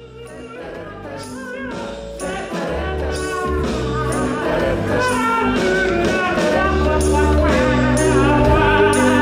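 Music with singing over steady bass notes, fading in from silence and growing louder over the first few seconds.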